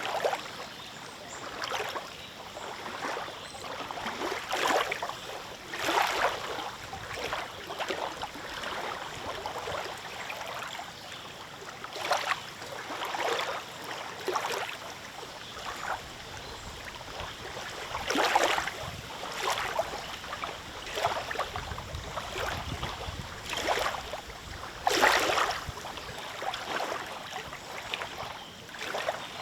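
Small lake waves lapping and splashing at the shore in irregular surges, over a steady wash of moving water.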